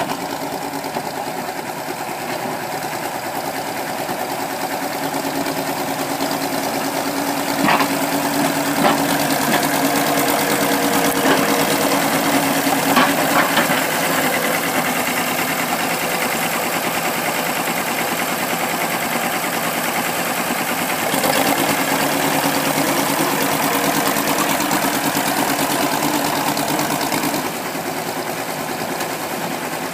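1955 Oliver OC-12 crawler tractor's engine running as the dozer works, swelling louder twice as it takes load, with a few sharp clanks from the steel tracks during the first louder stretch. The engine eases back near the end.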